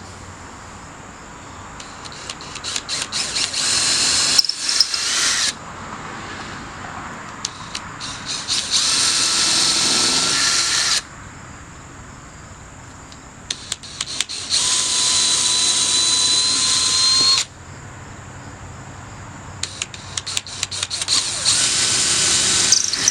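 Power drill with a 3/16-inch bit boring pilot holes into a pressure-treated 4x4 wooden post, four separate runs. Each starts with a few short stuttering pulses of the trigger, then runs steadily for about three seconds before stopping.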